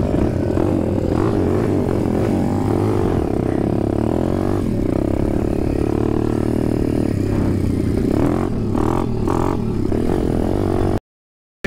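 Demon X 170cc single-cylinder four-stroke pit bike engine running as it is ridden along a dirt track, at a fairly even pitch that wavers slightly with the throttle. The sound cuts off suddenly near the end.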